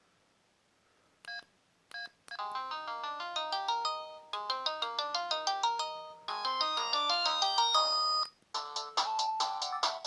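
LG C1300 flip phone playing its built-in polyphonic ringtones, synthesized melodies with several notes sounding at once. After about a second of silence come two short beeps, then a ringtone melody. Near the end it stops briefly and a different ringtone starts, made of short plucked-sounding notes.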